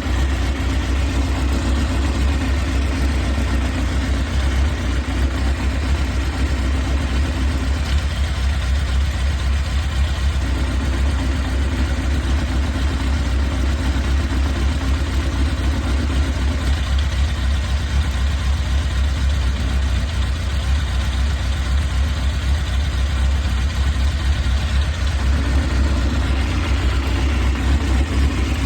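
1998 Honda CBR600F3's inline-four engine idling steadily in neutral, with the whirring noise that the owner asks is normal. A mid-low layer in the sound fades out and back in a few times.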